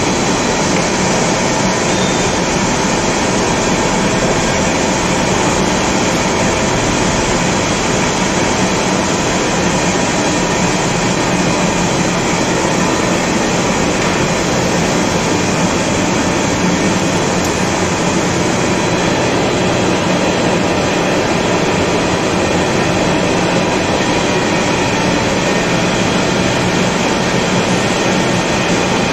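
Heavy vertical lathe running: a steady, loud mechanical rumble that does not let up, with a thin steady high whine above it.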